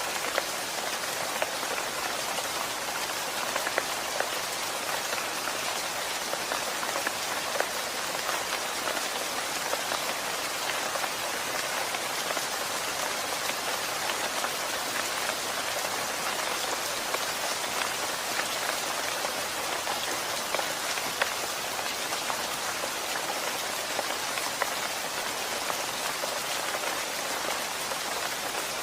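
Steady rain falling, a dense even hiss with many small drops ticking on a surface.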